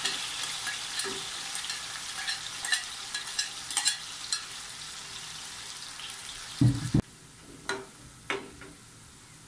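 Parboiled banana slices frying in hot oil in a metal wok: a dense sizzle full of small crackles, loudest as the slices go in and slowly dying down. About seven seconds in there is a loud low thump. After it the frying is much quieter, with a couple of sharp clicks.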